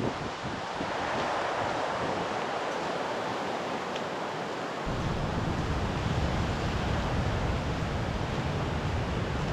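Sea waves washing onto the shore. From about halfway through, wind rumbles on the microphone as well.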